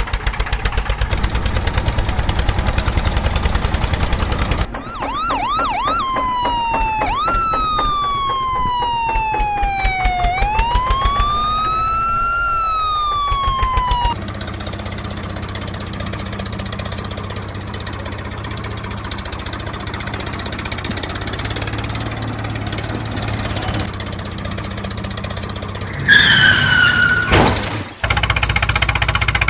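An engine running with a rapid pulse, then a siren: a few quick rising yelps, then a slow wail that falls and rises again before cutting off. A steady engine rumble follows, with a short falling tone near the end.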